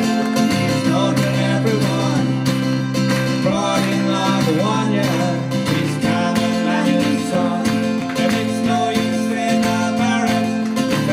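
Acoustic guitar strumming a steady folk accompaniment, with a wavering melody line over it.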